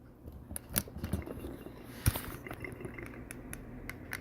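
Scattered small metallic clicks and taps from a padlock and lock-picking tools being handled, with one sharper click about two seconds in.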